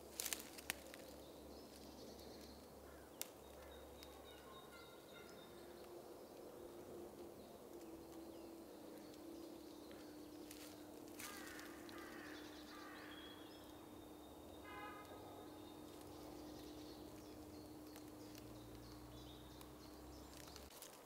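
Quiet woodland ambience with faint birdsong, short runs of repeated high notes, over a faint steady low drone. A few soft sharp clicks in the first few seconds.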